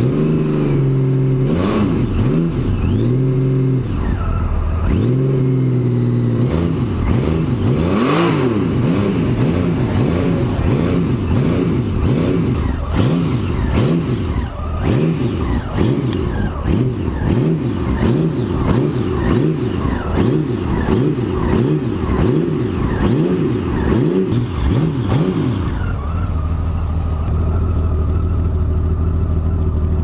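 A Honda Valkyrie's carburetted flat-six engine is being revved up and down over and over with the throttle, so it keeps running while its six carburettor float chambers refill after winter storage with the fuel tap closed. About 26 seconds in, the revving stops and the engine settles into a steady idle.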